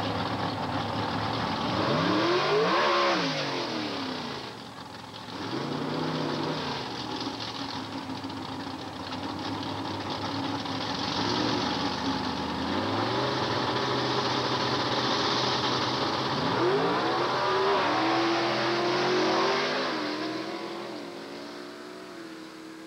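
Drag-race car engines revving hard and dropping back, with a held steady pitch in between. Near the end they rev up through rising sweeps, then fade away into the distance.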